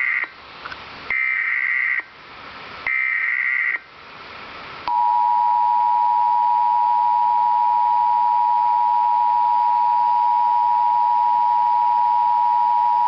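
Emergency Alert System test signal: three bursts of digital SAME header data, each about a second long with quieter hiss between, then the steady two-tone EAS attention signal held for about eight seconds.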